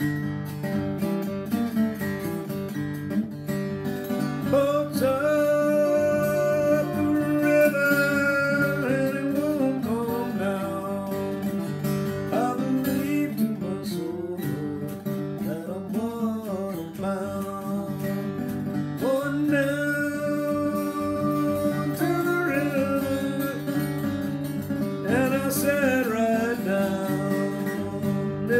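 A man singing to his own flat-top acoustic guitar, an old-time song sung in phrases with the guitar ringing on between them.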